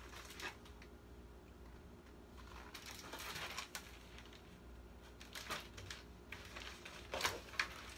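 Pages of a picture book being handled and turned: faint paper rustles, with a longer swish about three seconds in and a few light taps near the end.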